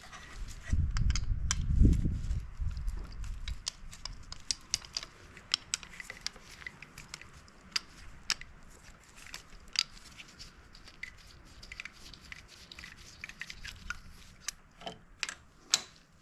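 Hand work on a dirt bike carburetor top: many small scattered clicks and light taps of a screwdriver and small metal parts as the Phillips screws come out and the slide and throttle cable are freed. A dull low rumble of handling about a second in is the loudest part.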